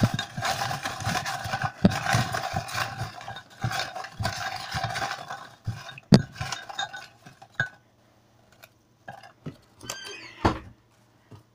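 Lots for a draw being shaken and stirred by hand in a container: a busy rattling, clinking clatter for about five seconds, then scattered single knocks and clicks as one is picked out.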